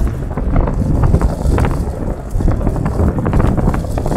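New Land Rover Defender rolling over a loose gravel track: a steady low road rumble, with the tyres crunching and stones clicking many times against the vehicle.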